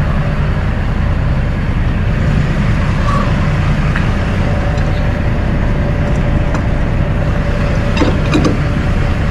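Diesel semi-truck engine idling nearby, a steady low rumble with a faint constant hum above it. A few sharp clicks about eight seconds in.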